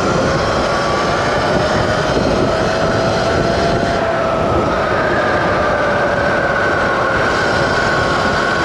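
Sur-Ron electric dirt bike's motor whining under hard acceleration, a thin whine that climbs gently over the first few seconds and then holds, under heavy wind rush on the rider's microphone.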